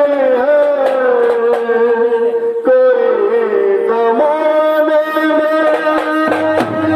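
A singer drawing out long, sliding notes without clear words, over a steady instrumental accompaniment.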